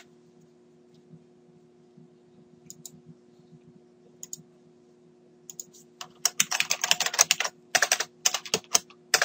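Typing on a computer keyboard: a few scattered keystrokes, then a fast run of typing over the last three seconds or so. A faint steady hum runs underneath.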